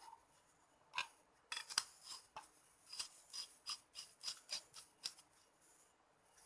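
A run of short, sharp clicks or snips from hand work on small parts: one about a second in, then about a dozen more in quick, uneven succession over the next four seconds.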